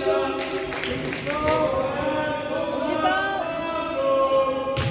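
Several voices chanting or singing together, held notes overlapping, with a few sharp knocks.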